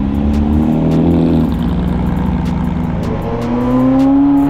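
Car engine running and revving, its pitch bending about a second in and rising steadily near the end, with background music.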